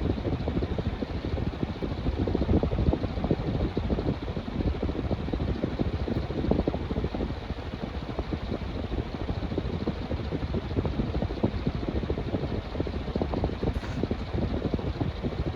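Dayton (Leading Edge/Marley) 56-inch industrial ceiling fan running: a steady rush of moving air with fast, uneven buffeting low down, where the blades' draft hits the microphone.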